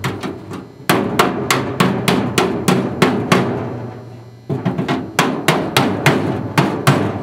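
Hand hammer tapping down a freshly welded sheet-steel floor patch in a Lada Niva's floor pan, about three sharp metal knocks a second, with a short pause partway through. A steady low hum runs underneath.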